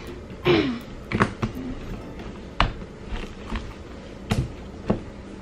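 Sticky homemade slime being stretched, pressed and kneaded by hand, giving irregular sharp wet clicks and squelching pops as it pulls off the fingers. The slime is still too sticky.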